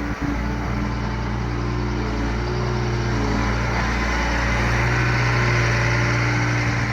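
Diesel engine of a mini excavator running steadily, growing a little louder about four seconds in.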